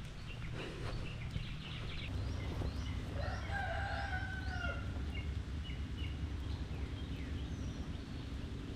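A rooster crowing once, a drawn-out call of about a second and a half, with small birds chirping around it.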